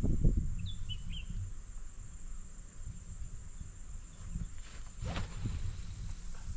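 A spinning rod being cast: a quick swish about five seconds in as the rod whips forward and the feeder flies out. Under it are a steady low rumble, a thump at the start, a few short bird chirps about a second in, and a steady high insect trill.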